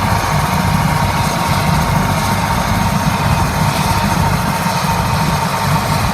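Helicopter running on the ground, its engine and rotor making a loud, steady noise with a constant whine over a fast low chop.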